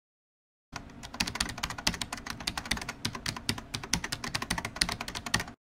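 Rapid computer-keyboard typing, a fast uneven run of key clicks that starts suddenly just under a second in and stops abruptly near the end.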